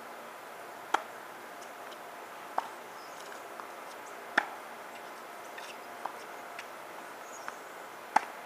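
Tennis rally on a hard court: sharp pops of ball on racket strings and fainter ball bounces, coming every second and a half or so. The three loudest pops are the near player's shots.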